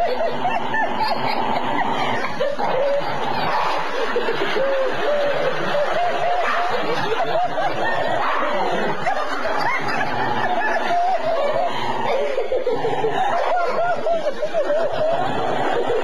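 A person laughing in stifled snickers and chuckles, wavering up and down in pitch and going on with only short breaks.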